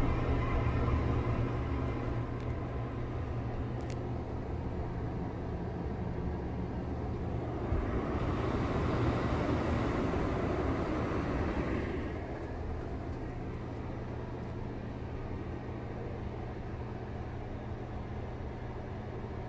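Old Broan ceiling exhaust fan running steadily: a motor hum with the rush of moving air. The air rush grows louder about eight to twelve seconds in, up close to the grille, then settles back.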